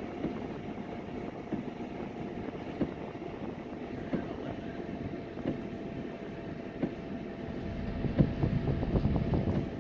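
Car moving slowly through standing floodwater, heard from inside the cabin: a steady low rumble of engine and tyres with scattered ticks and splashes, growing louder about eight seconds in.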